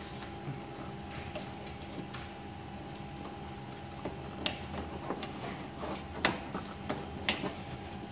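Clicks, taps and rustling as hands work a printer's squeeze pump free from its mount and tubing among the cables, with several sharp plastic clicks in the second half. A steady electrical hum runs underneath.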